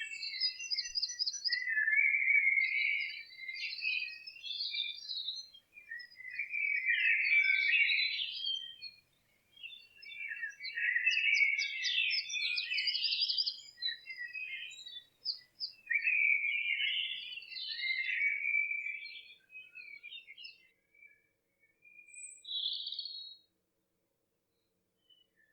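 English dawn chorus: songbirds singing in phrases of a few seconds with short pauses between them. The song dies away near the end.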